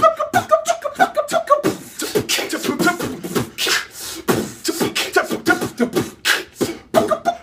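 Beatboxing: fast vocal percussion of mouth clicks, kicks and hissing snare sounds. Short sung pitched syllables run over it for the first couple of seconds.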